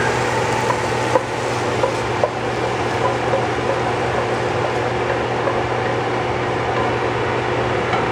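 Steady whir and hum of a kitchen exhaust fan. About one to two seconds in, a wooden spatula clicks lightly against the wok as the stir-fry is scraped out onto a plate.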